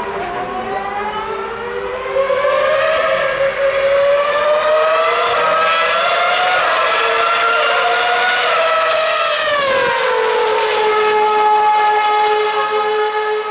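A 2013 Formula One car's 2.4-litre V8 engine at high revs, its pitch climbing as it approaches. About ten seconds in it passes with a sharp drop in pitch, then holds a steady lower note as it pulls away.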